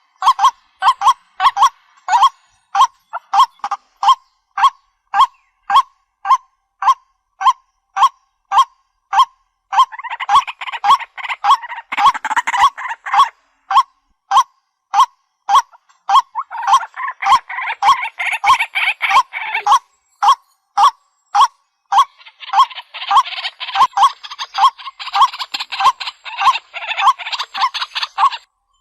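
White-breasted waterhen calling: one short note repeated evenly about two or three times a second, with stretches of denser, overlapping calling around a third of the way in and through much of the second half.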